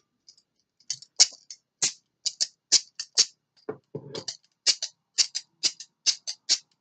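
Handcuffs clicking as one cuff is unlocked with its key and worked off the wrist: a quick, irregular run of sharp clicks, two or three a second, with a little handling rustle midway.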